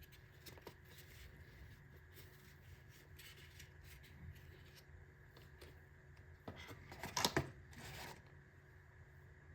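Faint handling noises: scattered soft clicks and rustles, with a louder burst of rustling and scraping about seven seconds in.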